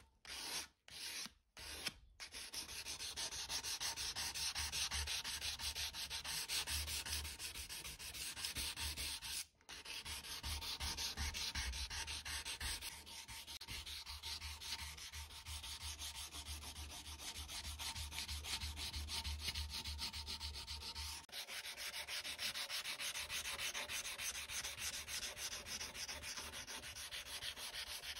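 Hand sanding of a steel cleaver blade with an abrasive sanding stick: quick, steady back-and-forth scraping strokes, briefly broken off a few times in the first two seconds and once near ten seconds.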